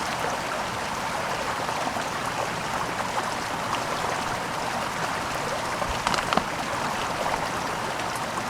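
Steady rush of flowing creek water as a collapsible water bag is held in the current to fill, with a few brief splashy knocks about six seconds in.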